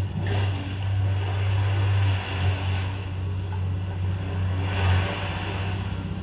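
Low, steady droning hum with a faint hiss above it, swelling briefly about two and a half and five seconds in: the accompanying sound track of a stage dance piece.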